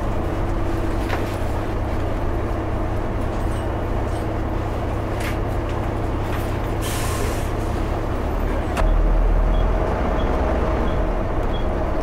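Volvo B7TL double-decker bus's six-cylinder diesel running, heard inside the bus as a steady low drone. A short air-brake hiss comes about seven seconds in. About a second later there is a click, and the engine grows louder with a steady whine.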